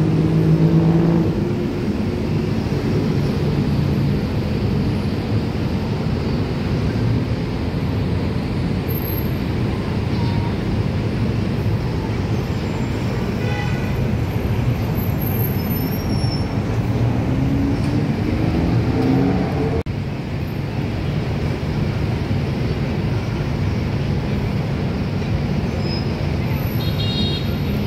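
Dense road traffic at a busy city intersection: a steady rumble of car, bus and motorbike engines, with one engine note rising as a vehicle pulls away about two-thirds of the way through.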